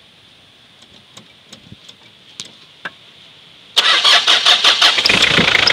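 A few faint clicks, then about four seconds in a car engine cranks and starts and runs steadily, with its fan belt freshly tightened so that there is no belt squeal.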